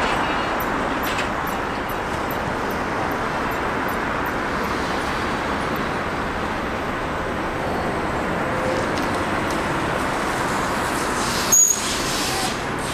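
Steady road traffic noise from a busy multi-lane city street, with cars and buses passing. About a second before the end, a brief, sharp, high-pitched sound cuts through as the loudest moment.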